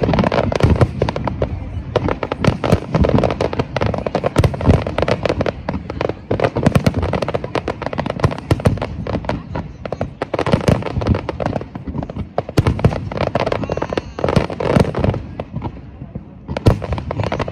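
Aerial fireworks display going off in a dense, rapid barrage of shell bursts, many per second, easing briefly a few times before picking up again.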